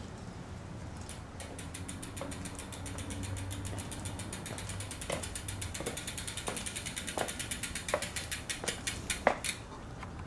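A Colnago road bike's rear freehub ticking rapidly and evenly as the bike is wheeled along without pedalling. From about halfway, louder single clicks come roughly every 0.7 s, like high-heeled footsteps on concrete.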